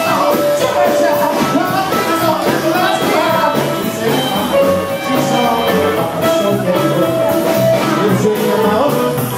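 Live rockabilly band playing: a man singing over electric guitar, bass and a steady drum beat.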